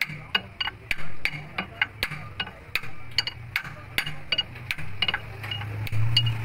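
Metal-on-metal hammer taps, about three a second, on a steel drift held against the ball bearing of an Eicher 333 tractor's PTO shaft, driving the bearing along the shaft. A low hum runs underneath and swells near the end.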